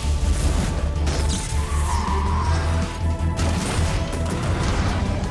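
Cartoon battle music with a driving bass line, overlaid with crash and impact sound effects several times.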